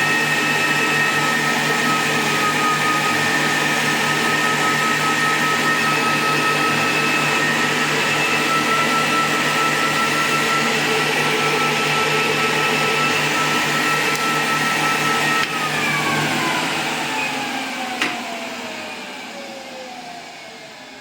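Electric motor in a repaired device under power test, running with a steady whine over a rushing noise; about 15 seconds in it is switched off and winds down, the whine falling in pitch as it slows. A single sharp click comes near 18 seconds.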